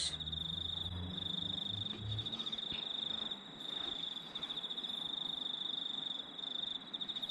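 Insects trilling steadily at a high pitch with a fast pulsing rhythm. A faint low hum is heard for the first two seconds.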